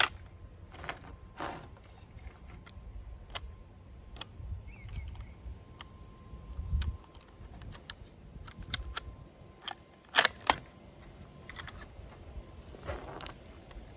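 Scattered metallic clicks and light knocks from handling and loading a Carcano carbine, with a louder pair of clicks about ten seconds in.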